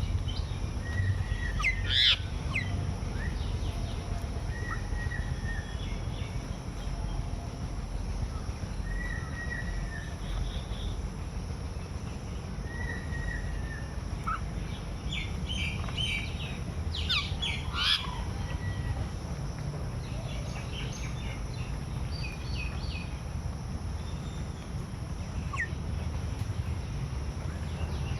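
Birds chirping and calling in short scattered notes, with a busier cluster about two-thirds of the way through, over a steady low rumble.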